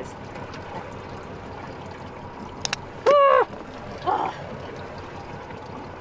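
Steady background of water moving around a drifting boat, with two quick clicks a little past two seconds in. Just after, a short, loud, high voice-like cry, then a fainter one about a second later.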